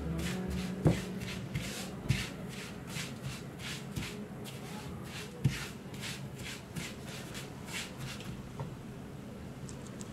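Silicone spatula stirring and scraping a dry, crumbly mixture around a non-stick frying pan: a rhythmic swishing of about two to three strokes a second, with a few sharp knocks of the spatula against the pan. The stirring stops near the end.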